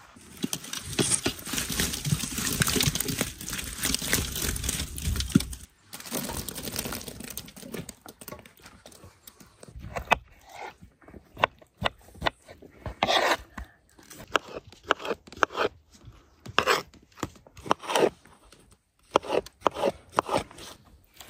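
Hand food-preparation sounds: about five seconds of dense crunching and tearing, then scattered sharp clicks and short crunchy scrapes.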